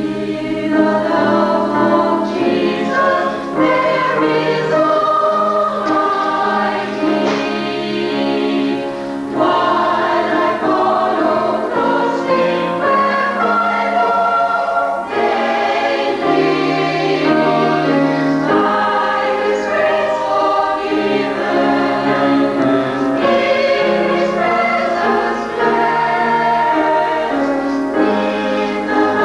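A small mixed choir of men and women singing together in parts, in held phrases with short breaks between them.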